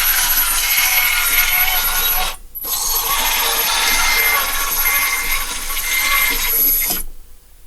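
Kabolite K963 1/16-scale hydraulic RC bulldozer running, a steady mechanical motor-and-gear noise with a faint high whine. It cuts out for a moment about two and a half seconds in and stops near the end.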